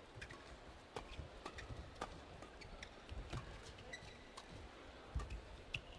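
Badminton doubles rally: rackets striking the shuttlecock in a string of sharp clicks, about one every half second to second, with feet thudding on the court and short squeaks of shoes.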